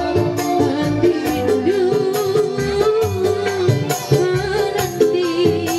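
Live dangdut band music played through a PA: a woman singing into a microphone over a driving hand-drum (kendang) rhythm and keyboard.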